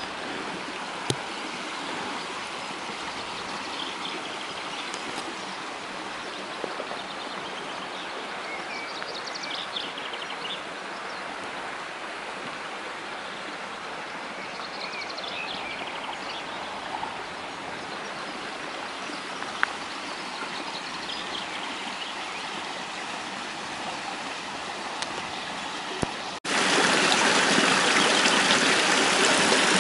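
Water of a small spring-fed stream running steadily, with birds chirping faintly now and then. About 26 seconds in it cuts to a much louder, closer rush of the stream pouring through a narrow rock channel.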